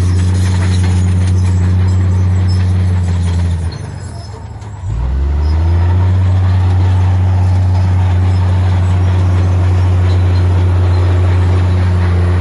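Heavy diesel engine of earthmoving machinery running steadily. Its pitch drops off for about a second near four seconds in, then revs back up and holds.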